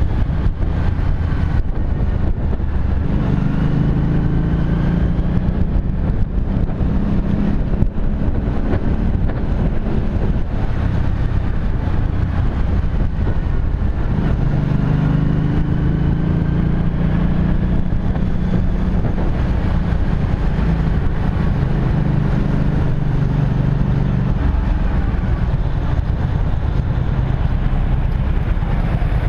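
Kymco Venox 250's V-twin engine running as the motorcycle rides through town traffic. The engine note grows louder as it pulls, about three seconds in and again about fourteen seconds in, then eases off.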